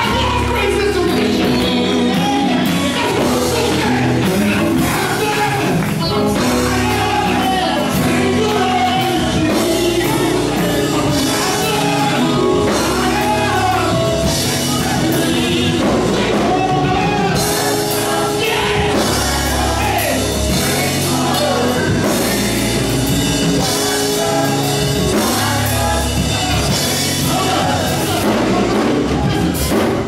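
Live amplified gospel music: a male lead singer with backing vocalists over electric guitar, bass guitar, keyboard and drums, at a steady loud level.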